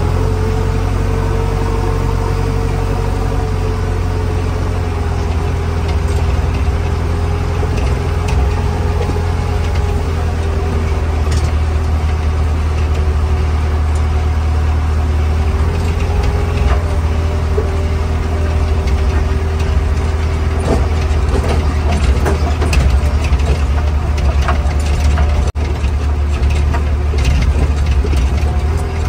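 JCB 3DX backhoe loader's diesel engine running steadily under way, heard from inside the cab: a strong deep drone with a higher whine that rises and falls a little. Light clicks and rattles come now and then in the second half.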